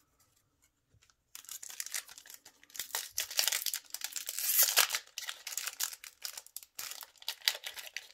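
Foil wrapper of a Yu-Gi-Oh! booster pack crinkling and tearing as the pack is torn open by hand. It starts about a second and a half in, as a continuous crackling rustle that is loudest about four and a half seconds in.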